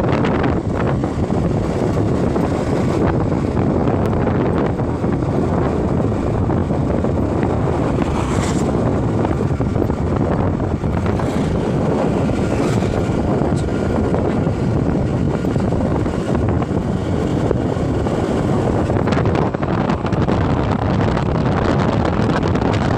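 Wind rushing over the microphone with the running engine and tyre noise of a Suzuki scooter riding along a road at about 45 km/h, loud and steady throughout.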